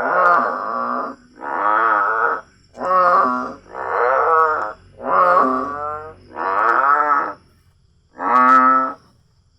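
A strange voice-like sound: a series of about seven drawn-out, wavering pitched calls, each around a second long with short breaks between them, and a longer pause before the last one.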